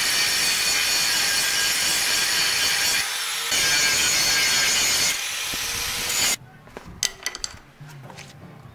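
Angle grinder cutting the factory diff bush support off a steel rear K-frame: a steady high hiss of the disc biting into the metal for about six seconds, changing pitch and strength partway through, then cutting off suddenly. A few light clicks of metal being handled follow.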